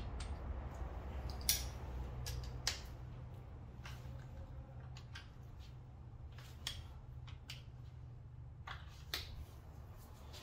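Scattered sharp metallic clicks and clinks of a hand ratchet with an M10 triple-square bit undoing bolts on the front of a VW 2.0 TDI engine to take off the water pump, irregularly spaced, over a low steady hum.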